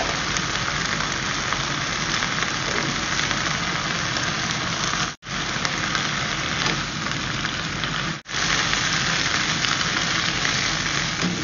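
Mustard greens sizzling in hot oil in a wok while being stir-fried with a spatula: a loud, steady sizzle that cuts out abruptly twice for a moment.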